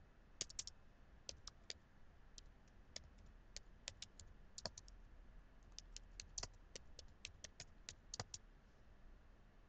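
Faint, irregular keystrokes on a computer keyboard, typing in short runs and stopping near the end.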